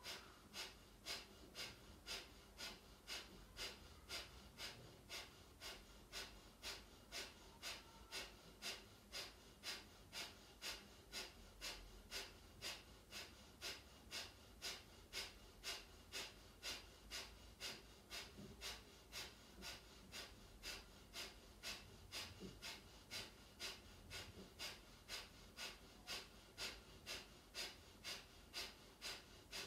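Kapalabhati breathing: a steady run of short, forceful exhalations blown out through the nose, about two a second. Each stroke is driven by a pull-in of the abdominal muscles. The run is quiet.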